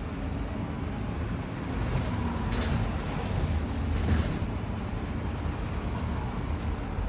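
A bus on the move: steady low engine and road rumble, with a few brief rattles or clicks partway through.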